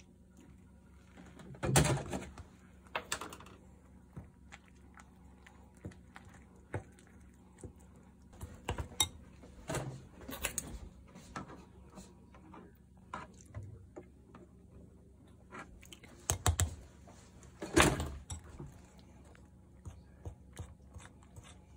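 Metal spoon stirring a thick powdered-sugar glaze in a ceramic bowl, with irregular clinks and scrapes of the spoon against the bowl; the loudest knocks come about two seconds in and a few seconds before the end.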